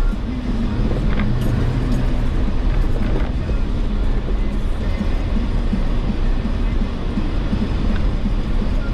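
Jeep Wrangler driving off-road: a steady engine and drivetrain rumble, with a few light knocks.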